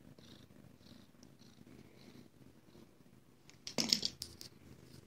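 Ragdoll cat purring close to the microphone, a steady low rumble. About four seconds in, a brief loud rustle with a few clicks.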